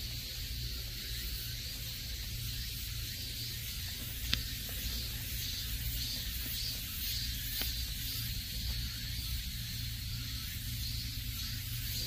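Outdoor ambience: a steady high hiss with a faint chirp repeating about twice a second, over a low rumble, and one sharp tick about four seconds in.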